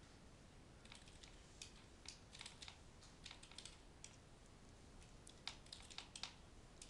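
Computer keyboard being typed on: faint, irregular keystrokes coming in short runs.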